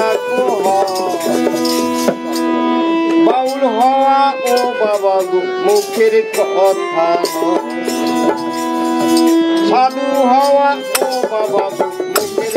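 Live Baul folk song: a man singing an ornamented, wavering melody with long held notes, over rattling percussion that keeps a steady beat.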